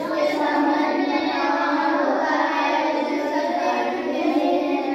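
A group of children's voices in unison, chanting in a drawn-out sing-song chorus.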